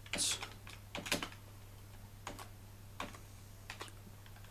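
Slow, irregular typing on the soft-touch keys of a Polaroid wired USB keyboard: separate key clicks coming singly or in quick pairs, with pauses of up to about a second between them.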